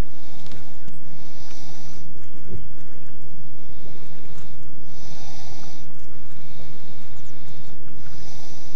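A person breathing close to the microphone, three breaths a few seconds apart, over a steady low rumble.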